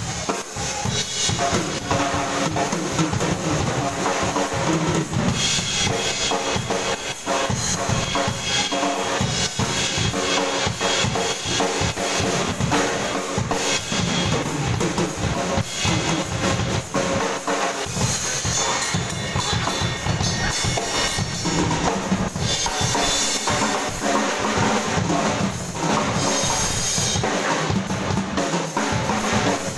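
Two acoustic drum kits, a red Tama kit and a GTX kit, played hard and without a break in fast grooves and fills. Bass drum, snare, toms and cymbals are struck densely over a continuous cymbal wash.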